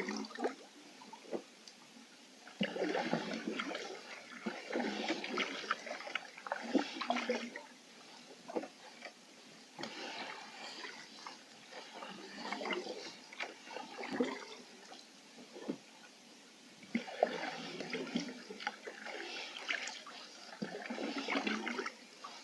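Canoe paddle dipping and pulling through calm water: splashing, swirling and dripping in three spells of a few seconds each, with quieter lapping and trickling between them.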